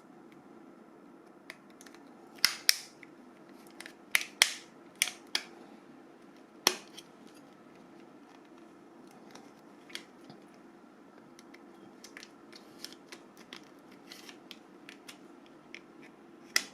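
Sharp plastic clicks and taps as the Nokia E65 slider phone's parts and small tools are handled during disassembly, a cluster of loud ones in the first seven seconds and fainter, sparser ones after, over a steady low hum.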